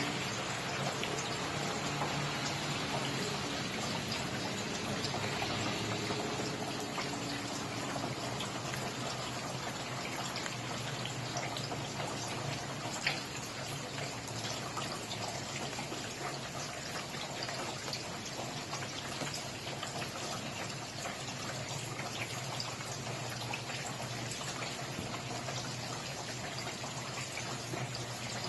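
Steady rain falling, a dense hiss of drops with many small distinct drip ticks and a slightly louder drop about 13 seconds in.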